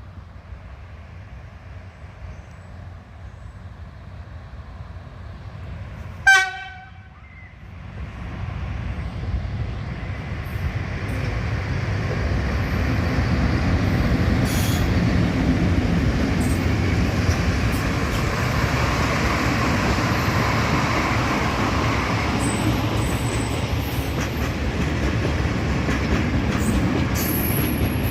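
A train sounds one short horn blast about six seconds in, then approaches and runs over the level crossing, the rumble of its engine and wheels on the rails building up and staying loud.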